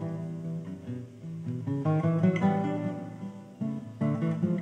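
Solo nylon-string classical guitar played fingerstyle, plucked melody notes over bass and chords. A softer phrase gives way to louder chords about two seconds in.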